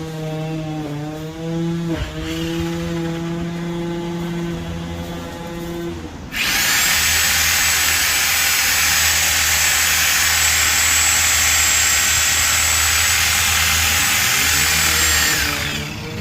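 A power saw's motor running steadily, then about six seconds in it bites into a bottlebrush trunk. A loud, harsh cutting noise with a high whine lasts about nine seconds and eases off just before the end.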